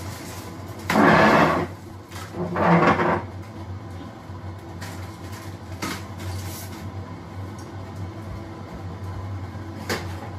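Someone slurping the last drops from a nearly empty drink can, two loud slurps about a second in and again near three seconds. A faint steady hum and a few light knocks follow.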